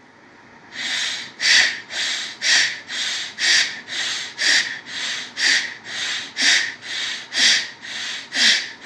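Bhastrika pranayama: a man's rapid, forceful breaths in and out through both nostrils, a hissing stroke about every half second, with every other stroke louder. The breathing starts about a second in and keeps an even rhythm.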